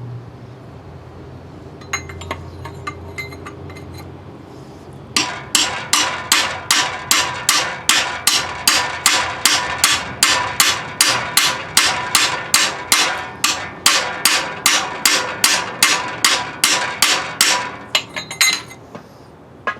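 A hammer beats steadily on metal, about two to three blows a second, each with a short ring, after some light clinking of tools. The blows fall on a rusted, water-logged part of a seized Ford 360 FE engine that will not come free.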